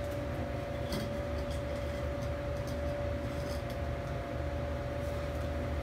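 A steady low machine hum with a constant whine held under it, and a few faint clicks and knocks.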